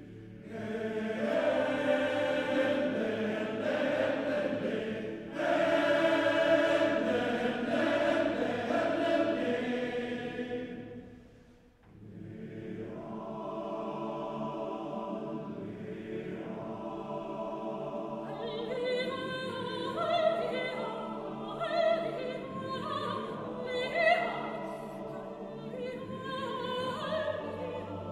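A men's choir sings loud sustained chords for about ten seconds, breaks off briefly, then holds softer chords. Over these a soprano sings wordless herding-call phrases, imitating Estonian herd calls, in the later part.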